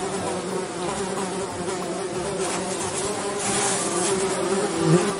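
Flies buzzing steadily, the drone wavering in pitch and swelling briefly near the end.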